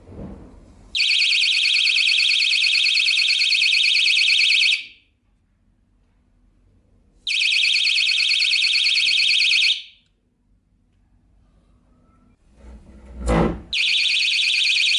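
Battery-operated stand-alone door/window alarm going off in three bursts of a loud, piercing, rapidly pulsing high-pitched tone. The first comes about a second in and lasts nearly four seconds, the second comes around seven seconds in and lasts about two and a half seconds, and the third starts near the end, just after a bump. The alarm is silenced between the bursts.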